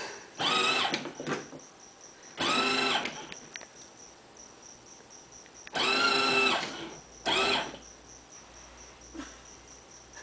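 Battery-powered ride-on toy train running, with a steady high ticking about four times a second. Four short, loud pitched sounds break in: near the start, around two and a half seconds, a longer one about six seconds in, and a short one just after.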